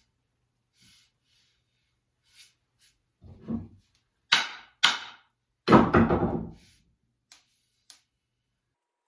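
Whacks on a double-bit axe as its head is struck to seat it on the handle: a softer knock about three and a half seconds in, then three loud sharp wooden knocks in quick succession, the last ringing on a little longer.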